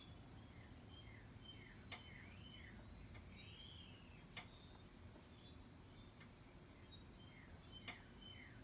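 Three faint sharp clicks a few seconds apart from the 2011 Ford Edge's ABS hydraulic control unit as its left-front outlet valve solenoid is switched on from a scan tool; the clean click shows the valve is working. Birds chirp throughout.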